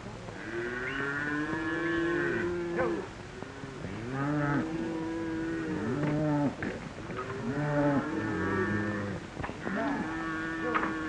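A herd of cattle being driven, many animals mooing over one another in long calls that rise and fall in pitch, one after another without a break.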